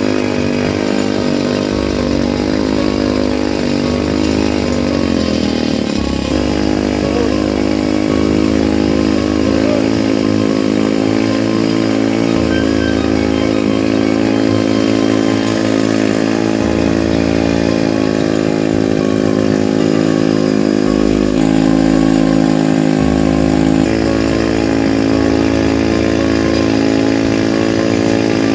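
Old motorcycle engine converted into a log-hauling winch, running steadily. Its pitch wavers and dips around five seconds in, then holds even.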